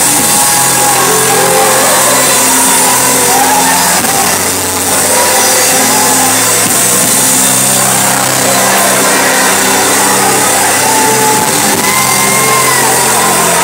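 Live gospel praise music: a band holding long low notes that change every second or so, under a choir and congregation singing, with some shouting.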